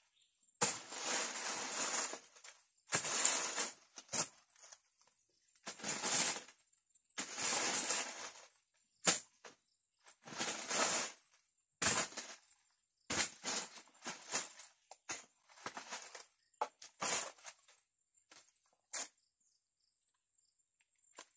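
Dry leaves and twigs being raked and scraped across the ground with a long-handled tool, in repeated strokes about a second long. Near the end come a few shorter, sharper scrapes, then it stops.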